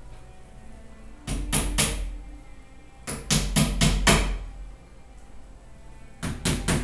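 Three quick bursts of sharp knocks, about four to six hits in each, roughly four hits a second.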